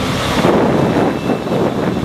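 Wind buffeting the microphone in loud, uneven gusts, a dense rumbling noise with no clear engine tone.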